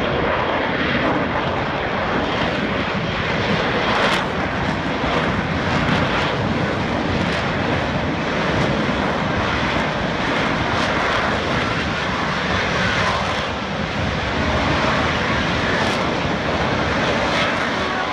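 F-35 Lightning II fighter's single Pratt & Whitney F135 jet engine, a loud, steady rushing jet noise as the aircraft flies slowly overhead.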